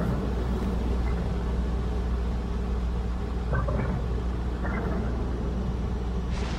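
Steady low hum of a machine running, with a few faint knocks and rustles over it.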